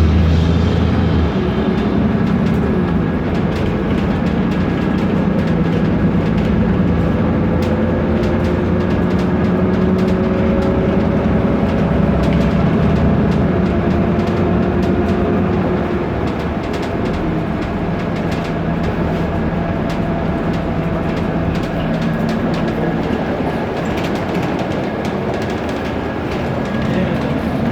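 Inside a BMC Procity city bus under way: its Cummins ISB turbo diesel and ZF automatic gearbox run with a steady drone while body panels and window glass rattle and click. A whine rises slowly as the bus picks up speed, and the noise eases off a little about halfway through.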